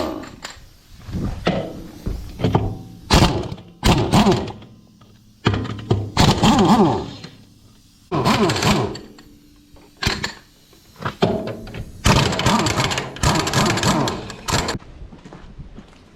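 Irregular series of heavy thunks and knocks, a second or so apart, from work on the tractor's rear wheel and brake assembly.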